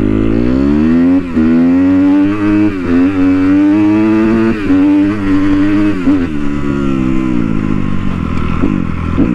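Dirt bike engine under hard acceleration, its pitch climbing with short dips as it goes up through the gears. After about six seconds the rider eases off and the engine note drops away.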